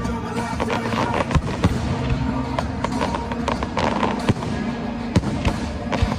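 Fireworks display going off: many sharp bangs and crackles in quick, irregular succession, over music playing along.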